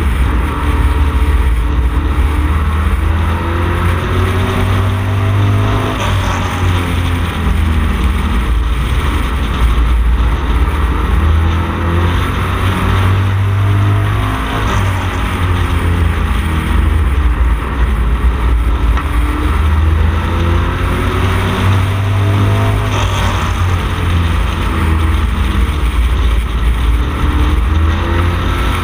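Camaro street stock race car's engine at racing speed, heard on board, its pitch rising and falling again and again as the driver gets on and off the throttle through the corners.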